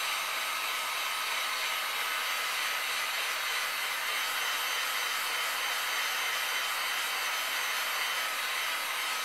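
Heat gun blowing a steady hiss of hot air, with a faint high motor whine, while it reflows the solder under a PS3 motherboard's GPU and CPU.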